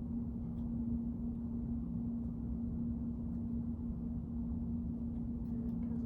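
A steady low hum with one constant tone over a low rumble, unchanging throughout, and a few faint ticks near the end.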